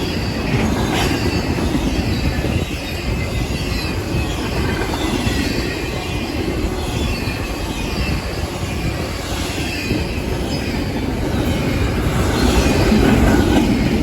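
Cars of a long intermodal freight train rolling past: a steady rumble of wheels on rail, with thin high squeals from the wheels coming and going.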